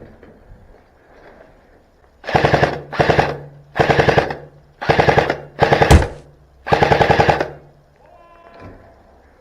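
Airsoft electric rifle, likely the Specna Arms SA-A08, firing six short full-auto bursts in quick succession from about two seconds in, each a rapid rattle of shots, with the gearbox motor's low hum running under the bursts.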